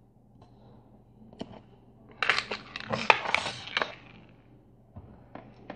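Hand-handling of an electronics module and its casing: a few sharp single clicks, then about two seconds of dense rattling clatter in the middle, then more scattered clicks near the end.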